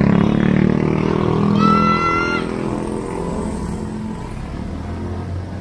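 A motorcycle engine passes close by, loudest at the start and fading away over the next few seconds. A short high tone sounds about two seconds in.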